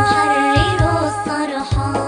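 Arabic nasheed music: a sung melody of held, wavering notes over a steady drum beat.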